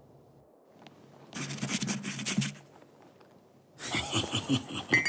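A cartoon character's breathy, snickering laugh in two bouts: a short breathy snigger about a second and a half in, then a run of quick chuckles near the end.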